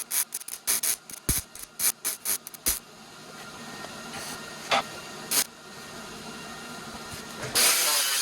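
Hand file rasping along the edges of steel pieces to chamfer them, in quick strokes of about four a second. After about three seconds the strokes give way to a steady hiss with two short bursts, which jumps to a much louder steady noise near the end.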